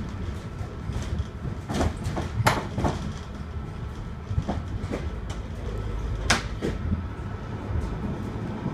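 Manchester Metrolink M5000 tram running, heard from inside the passenger saloon: a steady low rumble broken by sharp clacks. The loudest clacks come about two and a half seconds in and about six seconds in.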